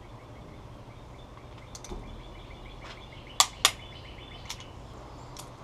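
Two sharp clicks about a quarter second apart, partway through: a click-type torque wrench breaking over as a cylinder head bolt reaches the 65 foot-pound setting.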